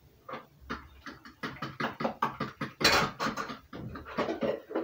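A utensil beating cake batter in a plastic mixing bowl, a fast run of taps and scrapes starting about a second in, with one louder scrape about three seconds in.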